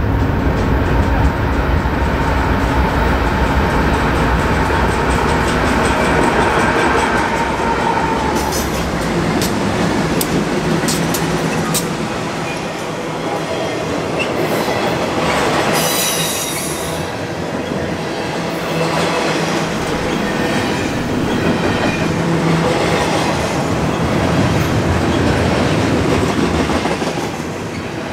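Freight train passing close by. Its lead diesel locomotives rumble past for the first eight seconds or so. Then double-stack intermodal well cars roll by with steady wheel rumble, scattered clicks and clanks from the wheels and couplings, and a brief high wheel squeal about halfway through.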